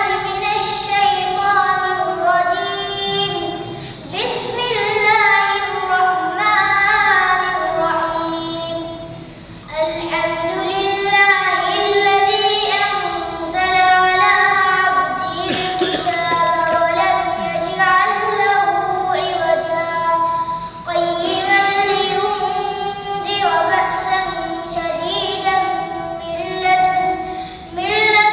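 A boy reciting the Quran in a melodic, chanted style, drawing out long held notes in phrases broken by a few short pauses for breath.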